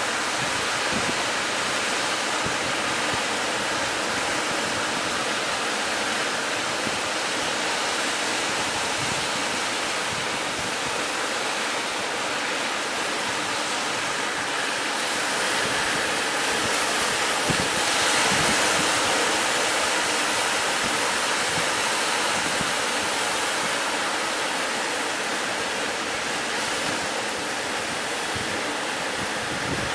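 Steady wash of sea waves and surf, with wind blowing across the microphone; it swells a little about two-thirds of the way through.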